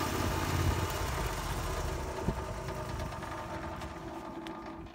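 Wood-Mizer portable sawmill's engine running steadily, growing gradually fainter.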